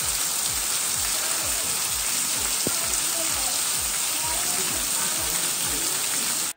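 Steady rush of fast-flowing river water and falls in a canyon, an even hiss.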